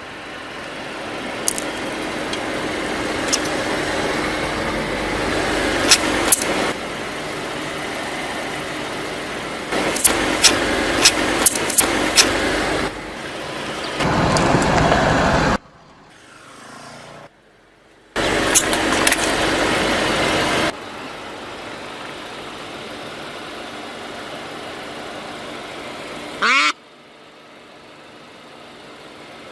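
A car rolling slowly over objects, crushing them, with several sharp cracks and crunches as they break, in a run of cut-together clips. A brief squeak comes near the end.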